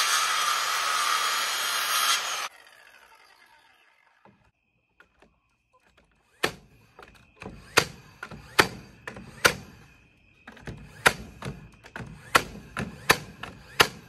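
Corded circular saw cutting through a board, switched off about two and a half seconds in, its blade winding down. After a few seconds of quiet, a run of sharp knocks on the wooden frame, one or two a second with a short pause midway.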